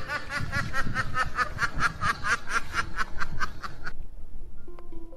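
Snickering laugh: a quick, even run of short 'heh' syllables, about five a second, that stops about four seconds in. A few held musical notes follow near the end.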